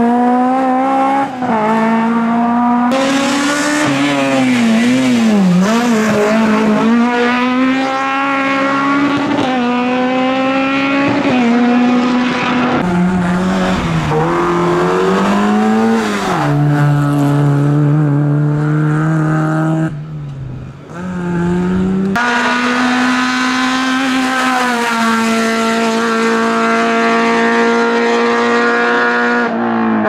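Fiat 127 Sport rally and hillclimb cars' small four-cylinder engines revving hard through the gears. The pitch climbs and drops sharply at each gear change and when lifting off for bends, with several cars heard in turn.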